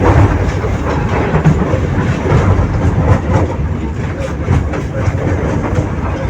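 71-623 tram running along the track, heard from inside the car: a steady low rumble of wheels on rail with repeated light clicks over the rail joints.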